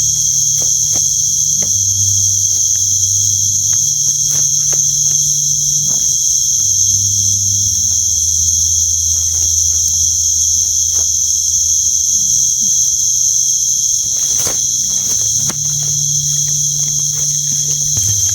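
Steady, shrill chorus of night insects, a continuous high-pitched trill, with scattered light clicks and rustles close by.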